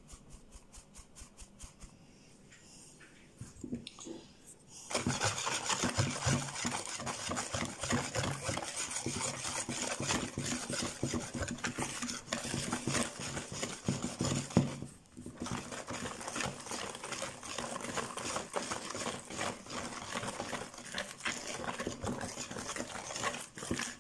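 A sieve shaken over a bowl, giving soft quick regular taps as flour falls through. About five seconds in, a wire balloon whisk starts beating the flour into creamed cake batter in a plastic mixing bowl: a loud, fast, steady clatter of wires against the bowl, with a brief pause about two-thirds of the way through.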